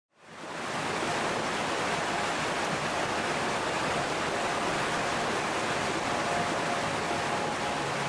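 Steady rush of water tumbling over rocks in a cascading stream, fading in from silence within the first second.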